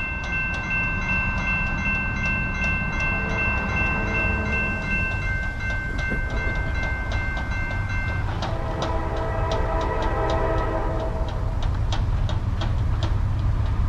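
Grade-crossing warning bell ringing as the crossing signals activate, stopping about eight seconds in. As it stops, the lead locomotive of an approaching Norfolk Southern freight, a GE Dash 9-44CW, starts blowing a long multi-note air-horn chord over a low rumble.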